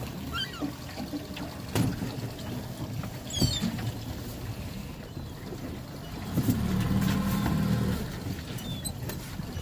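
Low rumble of a small aluminium boat on the water, with a couple of sharp knocks on the hull as a crab pot line is hauled up over a davit pulley. A louder steady low hum swells for a second or two past the middle, then drops back.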